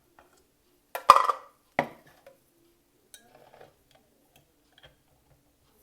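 Kitchenware and glassware being handled, clinking and knocking: a sharp cluster of knocks about a second in, one more just after, then a few light ticks.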